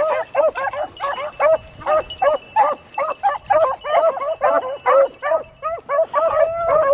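A pack of beagles baying together in full cry, a quick run of short overlapping calls, several a second, from more than one voice: the sound of hounds running a rabbit's track.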